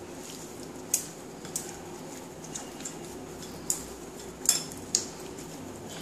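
Pieces of rohu fish being hand-mixed with salt and spices in a ceramic bowl: about five light, sharp clinks against the bowl, over a faint steady hum.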